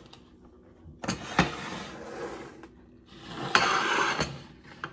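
Handling noise: two spells of rubbing and scraping, each with a sharp knock or two, as a plate and utensils or the phone are moved about on the stovetop.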